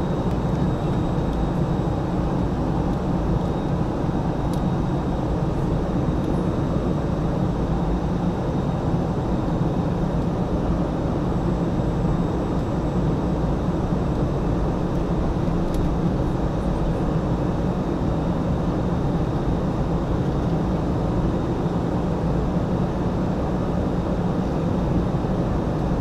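Airliner cabin noise during descent: a steady, unbroken low rush of engines and airflow, with a faint high steady tone above it.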